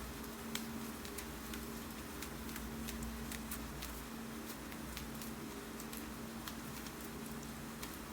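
Irregular keystrokes on a computer keyboard, several clicks a second, over a steady hiss of rain. A faint low hum runs underneath.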